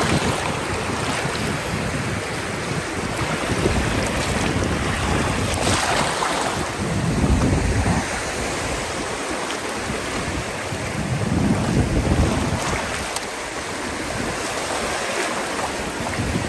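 Shallow surf washing in over sand, the foaming water swelling louder a few times as waves come in, with wind buffeting the microphone.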